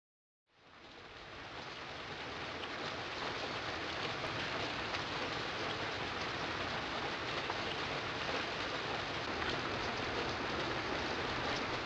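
Steady rain falling outside, a fine even patter that fades in over the first couple of seconds and then holds steady.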